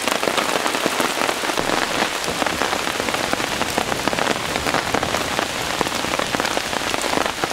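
Heavy rain falling steadily on woodland foliage and leaf litter, a dense, even patter of countless drops.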